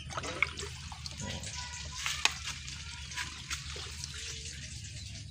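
Water splashing and trickling as it is drained out of a water-filter drum, with a few sharp clicks.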